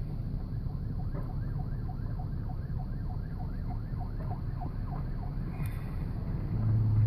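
Faint emergency vehicle siren in fast yelp mode, rising and falling about three times a second, from about a second in until it fades about five seconds in. A steady low rumble runs underneath, swelling louder near the end.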